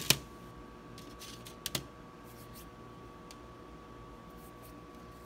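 A small domino set down on a tray, with two sharp clicks at the start, then lighter clicks and taps about a second and a half in as it and the other dominoes are handled.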